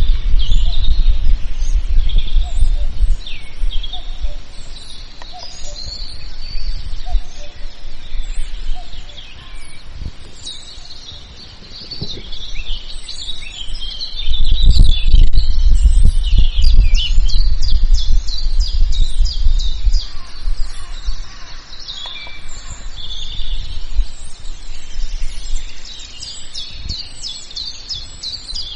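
Several birds chirping and singing together in a forest chorus, with many short, rapid calls. A low rumble comes and goes underneath, loudest at the start and again around the middle.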